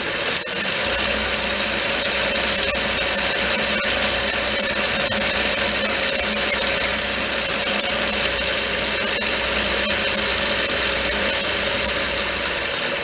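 Metal lathe running steadily while a threading tool cuts a short lead-in chamfer on the end of a small rod, with a held tone under an even, hissy machining noise.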